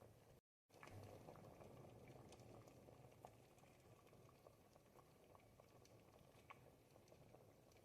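Ribollita, a thick Tuscan bread and vegetable soup, simmering in a pot: faint, soft bubbling with scattered small irregular pops. A brief gap of complete silence cuts in about half a second in.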